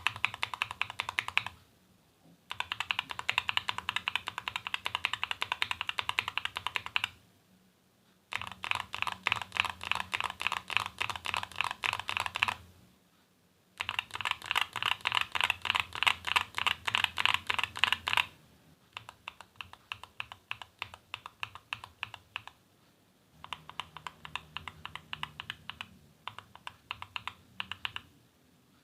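Fast typing on a mechanical keyboard with tactile switches in a foam-modded aluminium 60% case: dense runs of keystrokes a few seconds long, broken by short pauses. After about eighteen seconds the keystrokes become lighter and sparser.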